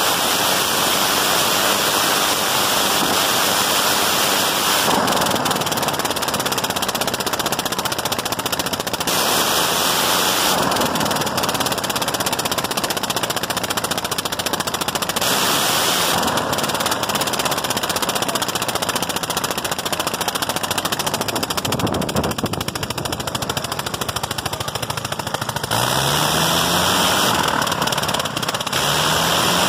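1918 Gnome rotary aircraft engine running loudly on a test stand, a fast even rattle of firing strokes. The pitch rises briefly twice near the end.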